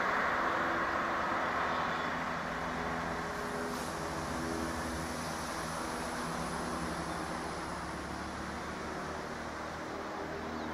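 Diesel locomotive engine running steadily with a low droning hum as the locomotive pulls away, slowly fading.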